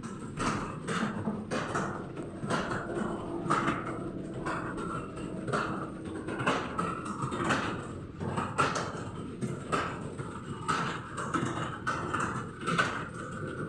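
Computer keyboard being typed on: irregular key clicks, a few a second, keeping on without a break.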